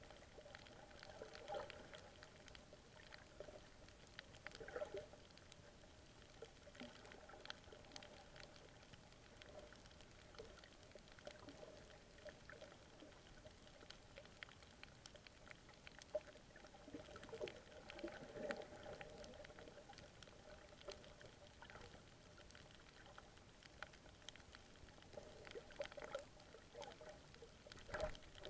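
Faint underwater ambience heard through the camera's waterproof housing: a low, muffled water hiss with many scattered small clicks and crackles.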